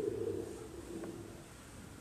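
Microphone handling noise: a short knock at the start as the handheld mic is handled and fitted onto its stand, followed by a low rumble that fades over about a second.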